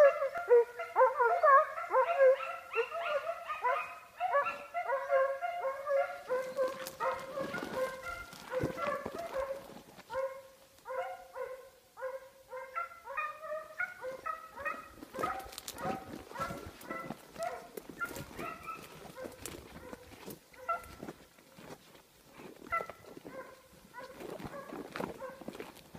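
Hunting hounds baying and yelping on a hare's trail, many voices overlapping in a dense, continuous chorus for the first six seconds, then thinning into more spaced calls. Brush crackles close by from about seven seconds in.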